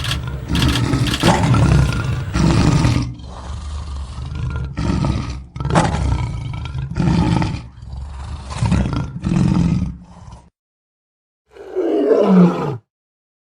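Lion roaring in a series of short, loud roars about one a second. After a break of a second, a single roar falls steeply in pitch.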